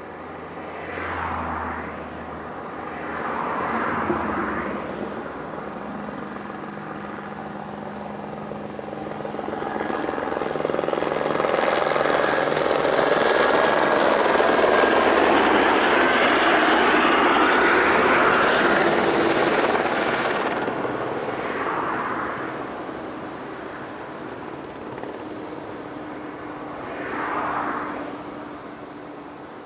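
Helibras AS 350 B2 helicopter's rotor and single turboshaft engine passing by: the sound swells for several seconds, stays loudest for a while, then fades away. Shorter swells of noise come and go near the start and the end.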